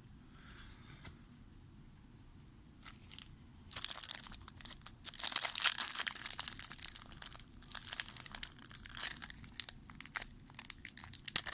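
A trading-card pack's wrapper being crinkled and torn open by hand, starting about four seconds in and going on in quick crackles to the end.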